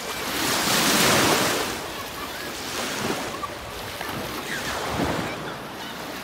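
Choppy lake waves washing in at the water's edge. A loud surge of splashing comes about a second in, then two smaller washes, with wind buffeting the microphone.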